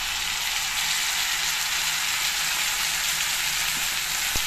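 Sliced green chillies and garlic sizzling in hot mustard oil in a kadhai, with spiced yogurt masala just added on top: a steady crackling hiss. A single light knock sounds near the end.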